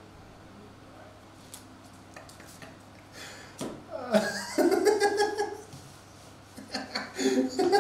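A man laughing in two bouts, the first starting a little over three and a half seconds in and the second near the end, after a few faint clicks.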